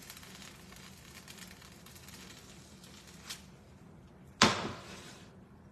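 Faint sizzling of food frying in a pan, dying down after about three seconds, with a small click and then a single sharp knock about four and a half seconds in, as of a utensil or can hitting the pan or counter.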